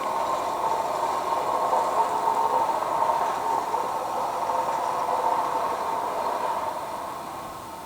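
A distant truck-mounted machine giving off a steady, harsh mid-pitched drone, the loud noise of road work down the street. It dies away near the end as the truck stops.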